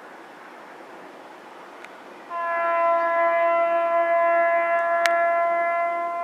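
P36 steam locomotive on the move, a steady noise of running, then a little over two seconds in it sounds a long, loud signal held at one steady pitch.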